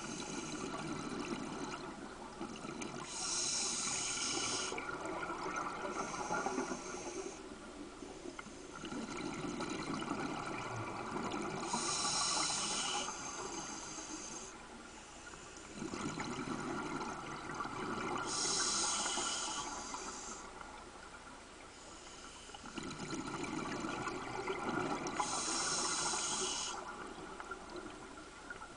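Scuba diver breathing underwater through a regulator: hissing inhalations and rushing, bubbling exhalations. Four breaths, several seconds apart.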